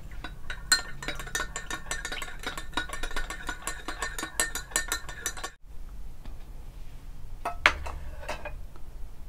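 A long metal spoon stirring milk in a glass measuring jug, clinking rapidly against the glass sides. The stirring stops abruptly about halfway through, and a few single clinks follow near the end.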